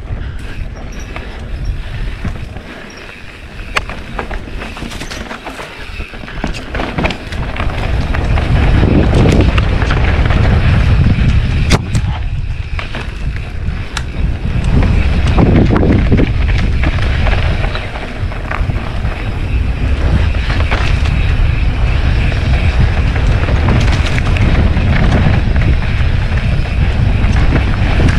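Mountain bike riding down a rough dirt singletrack: wind buffeting the camera microphone in a heavy low rumble, with repeated sharp clicks and knocks as the bike rattles over bumps. The wind rumble grows louder about eight seconds in.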